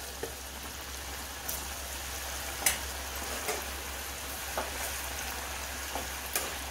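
Coated potato cubes deep-frying in hot oil in a steel kadhai, a freshly added batch sizzling steadily with a few sharp crackles.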